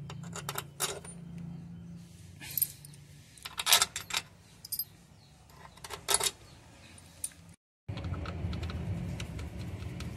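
Steel clutch-cover bolts clinking and jingling against each other and the aluminium cover as they are handled and set into their holes by hand, in scattered sharp metallic clicks. The sound cuts out briefly near the end.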